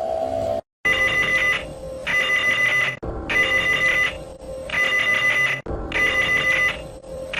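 Electronic emergency-alert alarm tone sounding in repeated trilled bursts, about one every second and a bit, like a ringing telephone. It starts just before a second in, after a brief silence.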